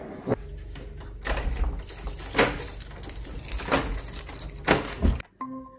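Keys jangling on a keyring as a key is worked in a door lock, with a series of sharp metallic clicks and knocks from the lock and door.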